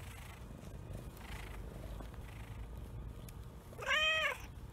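Black cat purring steadily up close, then giving one short meow that rises and falls in pitch about four seconds in.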